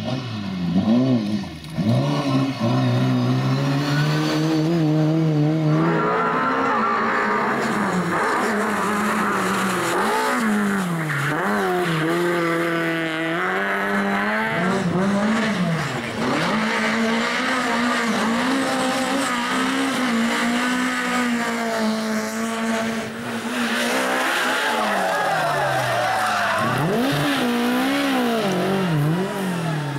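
Lada saloon rally cars' four-cylinder engines revving hard through bends, the pitch climbing and dropping again and again with gear changes and lifts off the throttle.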